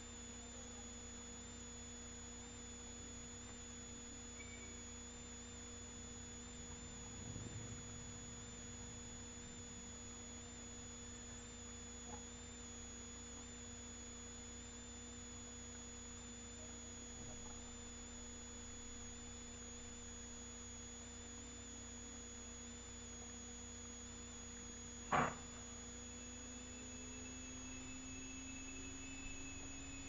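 Steady electrical hum made of several unchanging tones, a low hum with a thin high whine above it. Near the end there is one brief sharp sound, louder than the rest.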